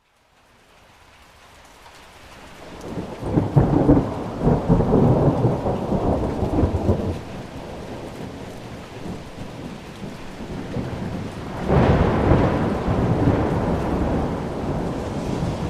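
Thunderstorm: steady rain with rolling thunder. The sound fades in from silence, a long low rumble builds about three seconds in and dies down, then a second, sharper clap breaks about twelve seconds in and rumbles on.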